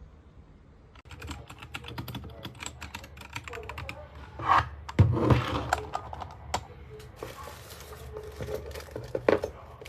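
Typing on a compact 68-key wireless mechanical keyboard: a quick, irregular run of key clicks that starts about a second in, with a few louder knocks near the middle.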